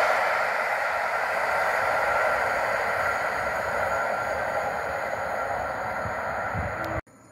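PKP Intercity passenger train of locomotive-hauled coaches rolling away along the track, its wheel and rail noise slowly fading as it recedes. The sound cuts off suddenly near the end.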